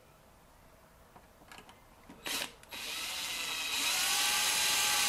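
Cordless drill starting up about two and a half seconds in, after a short knock, its motor whine rising and then running steady as the bit drills into the car's steel body panel.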